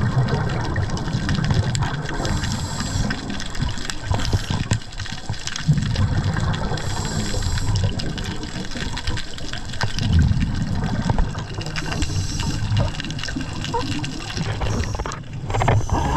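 A scuba diver breathing through a regulator underwater: rumbling gushes of exhaled bubbles alternating with hissing inhalations, a breath every few seconds.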